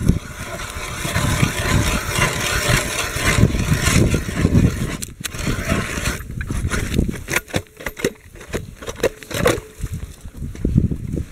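Hand-cranked ice auger's blades grinding through ice, a continuous crunching scrape for about five seconds. After that it goes on in broken, uneven scrapes and short knocks.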